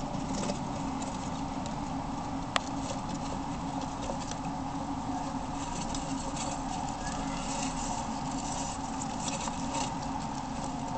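Roborovski dwarf hamsters scurrying over dry leaf and wood-shaving bedding: a light rustling patter that comes in clusters, over a steady low hum. A single sharp click about two and a half seconds in.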